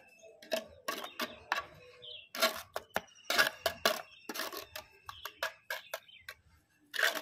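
Steel hand trowel slapping and scraping wet cement mortar on a concrete surface: a run of short, uneven strokes, the loudest about two and a half seconds in and near the end.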